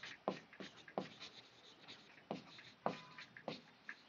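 Chalk writing on a chalkboard: a faint, irregular string of short taps and scratchy strokes as a word is written out.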